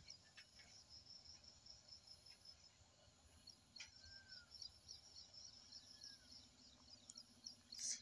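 Near silence: room tone with faint, rapid high-pitched chirping like insects, and a couple of light clicks, the louder one near the end.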